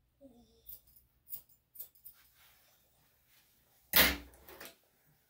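Grooming scissors snipping a Maltese's leg hair, a few short sharp snips in the first two seconds, then a much louder, sudden noise lasting under a second about four seconds in.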